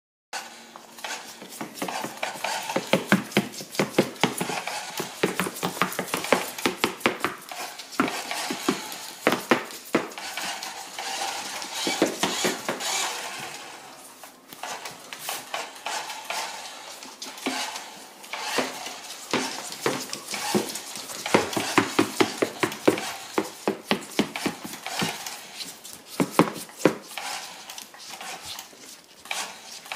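Tortoise's claws clicking and scraping on a hardwood floor as it walks, mixed with a plastic toy pickup truck knocking and scraping on the floor. Many irregular sharp clicks, with a quieter spell about halfway through.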